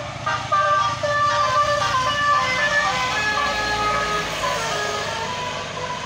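Tour bus's Basuri telolet horn playing a melody of quick stepped notes over the bus's engine as it passes, growing fainter as the bus pulls away near the end.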